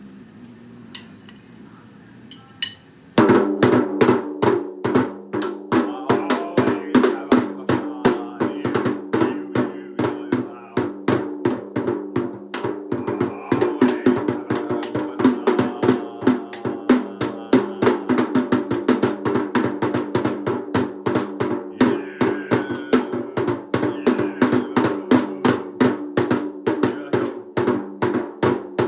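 Music with a fast, busy drum beat over steady pitched notes, starting suddenly about three seconds in after a few faint clicks.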